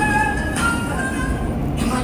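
Electronic chime melody of a Seoul subway train's announcement system, its last notes ending about a second in, over the steady low rumble of the train.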